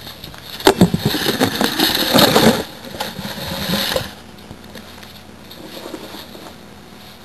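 Camera handling noise: rubbing and knocking as the camcorder is moved and set down on a wooden floor, for about three seconds, cutting off suddenly. After that, only low room noise.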